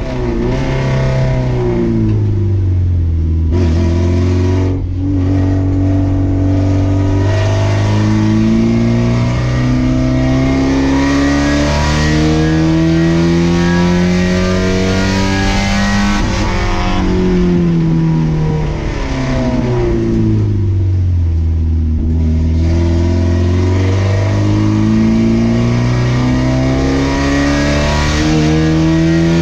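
Race car engine under hard use. It starts off the throttle at low revs, climbs in pitch for about ten seconds, drops back down, sits low for a couple of seconds, then climbs again near the end.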